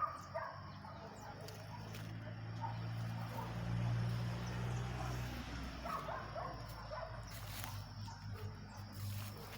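Short, high animal calls over a low hum that swells about four seconds in and then eases off.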